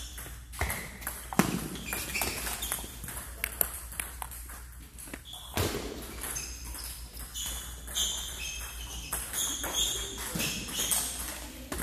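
Table tennis balls clicking sharply and irregularly off rackets and tabletops in rallies, from this table and the neighbouring ones.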